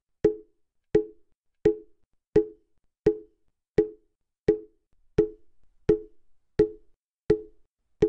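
Mokugyo, the hollow wooden fish drum of Buddhist temples, struck slowly and evenly: about eleven hollow wooden knocks, one every 0.7 seconds, each with a short ring.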